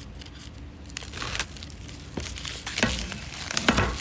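Paper pull-tab strips being torn off an iPad Pro box and its wrapping handled. It starts about a second in, with the sharpest rips near the end.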